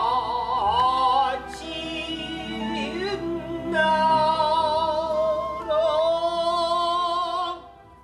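A Korean traditional (gugak) singer holds long notes with a wide, wavering vibrato over instrumental accompaniment. The music fades out near the end.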